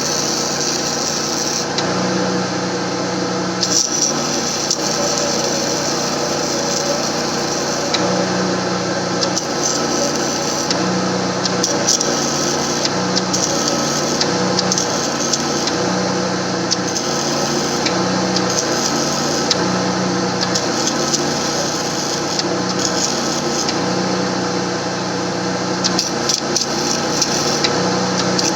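A small power tool running steadily, its tone shifting up and down every second or two as the load changes.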